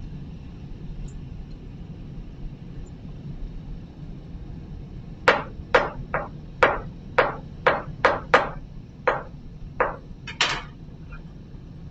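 Kitchen knife chopping garlic cloves by hand on a cutting board: a run of about eleven sharp knocks, roughly two a second, starting about halfway through.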